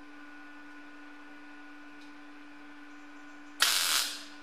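A single MIG tack weld on thin car-body sheet steel: the arc strikes suddenly about three and a half seconds in and crackles for about half a second before stopping. A steady hum sits underneath.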